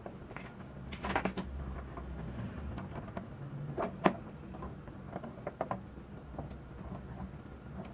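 Small clicks and taps of a model truck chassis and its wheels being handled and set down on a tabletop, a cluster about a second in and the sharpest click about four seconds in, over a steady low hum.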